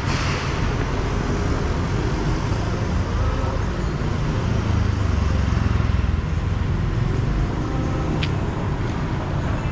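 City street traffic: a steady low engine rumble that swells as a vehicle passes close by about five seconds in, with a brief sharp click near the end.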